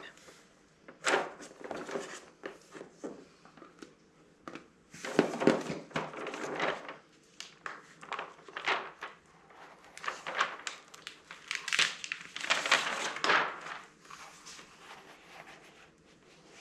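Irregular crinkling and rustling of large pieces of adhesive mounting tape being handled and pressed down, with a few light knocks.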